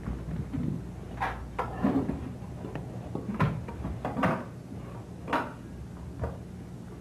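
Half a dozen sharp, irregular wooden knocks and clatters as breaking boards are handled on the floor, over a low steady hum.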